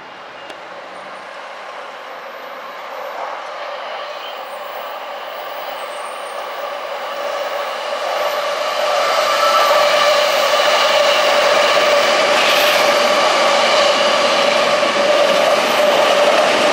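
Electric train approaching, growing steadily louder over about nine seconds, then running past at full volume with a steady whine.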